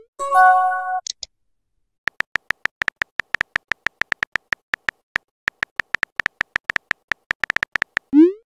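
Phone keyboard click sounds, a quick irregular run of short taps, as a text message is typed. Near the start a short chat-app message tone sounds, a chord of a few steady notes under a second long. Just before the end a quick rising swoosh marks a message being sent.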